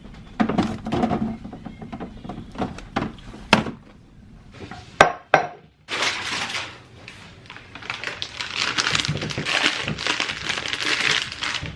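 Kitchen containers and dishes being handled: a string of sharp knocks and clinks, then a steady rushing hiss through the second half that stops at the very end.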